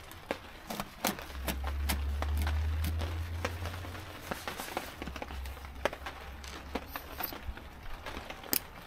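Knife sawing through a crusty Dutch-oven loaf: crunching of the crust and many scattered clicks of the blade and plate, over a low rumble that is strongest in the first half.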